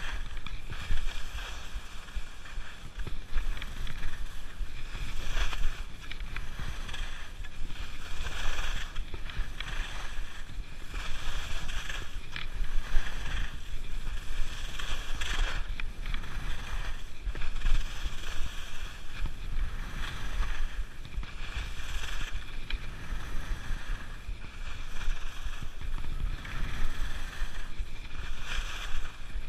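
Skis scraping and carving over soft spring snow through a steady run of turns, the hiss swelling roughly every two seconds, with wind rumbling on the microphone underneath.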